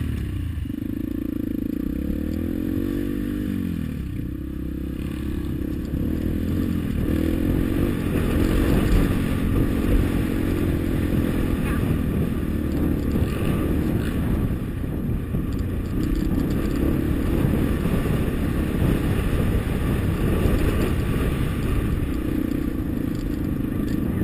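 Yamaha dirt bike engine running close by: at first low revs with the pitch rising and falling, then louder and rougher from about six seconds in as the bike rides up a dirt trail.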